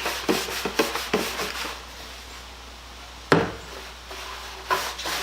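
Wooden toolbox parts being handled: a few short wood-on-wood rubs and scrapes, then a sharp knock about three seconds in and a lighter one near the end.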